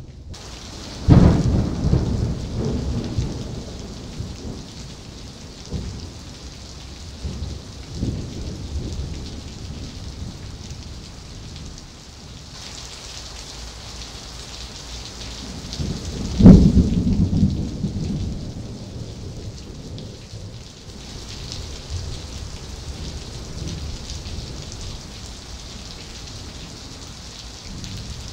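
Thunder from nearby lightning: two loud claps, about a second in and again about sixteen seconds in, each a sharp crack followed by low rumbling that dies away over several seconds, with smaller rumbles between them. Steady rain hisses throughout.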